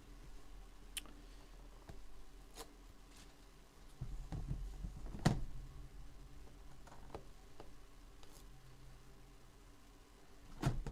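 A few scattered soft clicks and taps from trading cards and their packaging being handled, over a faint steady low hum.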